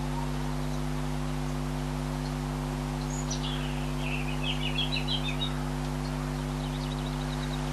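A small songbird sings once, about three seconds in: a falling whistle followed by a quick run of chirps. A steady low hum runs underneath throughout.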